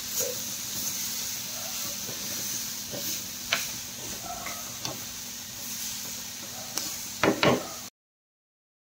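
Food sizzling steadily in a frying pan as it is stirred, with a few sharp clicks from the spoon. A louder short burst comes near the end, then the sound cuts off suddenly.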